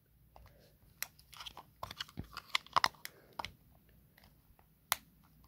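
Plastic battery cover of a BMW key fob being pressed and worked back into place by hand: a run of small plastic clicks, creaks and finger rustles, then one sharp click near the end.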